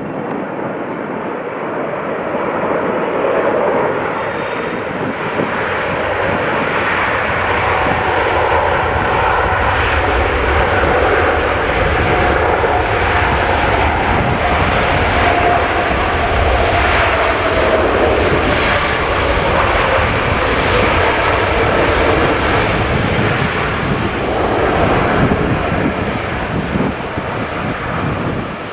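Boeing 777-300ER's twin GE90 turbofan engines running loud on the runway. The noise builds over the first few seconds and then holds steady, with a whine in it that slides slowly lower through the middle.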